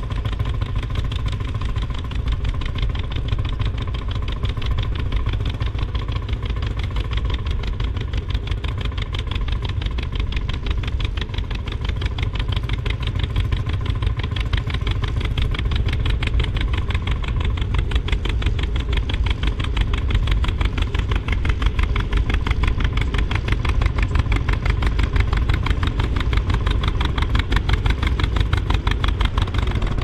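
Old two-cylinder John Deere tractor engine pulling a two-furrow plough, running steadily under load with an even, rapid exhaust beat.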